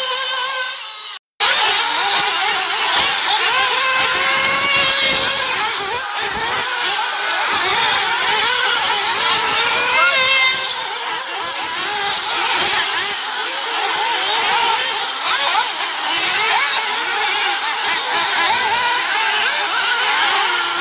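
Several RC off-road race cars' motors whining at high pitch, rising and falling as the cars speed up and brake around a dirt track. The sound cuts out briefly about a second in.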